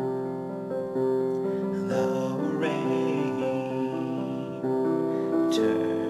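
Piano music, an instrumental stretch of a song: held chords that change every second or two.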